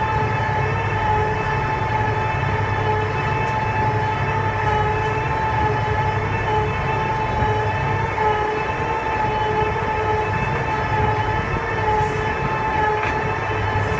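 Hi-Spec vertical-auger feed mixer wagon running, its auger churning chopped grass silage in the tub during the last stage of mixing a ration. A steady mechanical drone: a high, even whine over a low rumble.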